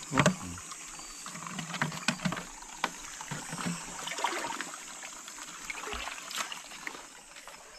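Shallow rocky stream water trickling and splashing, with scattered small splashes and knocks; a sharp knock just after the start is the loudest.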